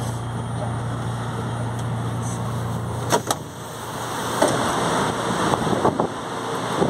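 Metro train standing at a platform with a steady low hum, then its doors open about three seconds in with two sharp clunks; a louder noisy rush follows, with scattered knocks.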